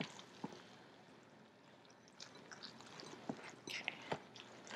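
Faint squelching and light sloshing as a wet Norwex microfibre kitchen towel is pressed and kneaded into a bowl of water while it soaks the water up, with a few small clicks and taps.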